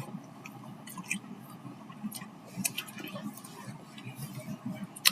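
Quiet eating sounds: soft chewing with scattered light clicks of utensils against a noodle bowl, a sharper clink near the end.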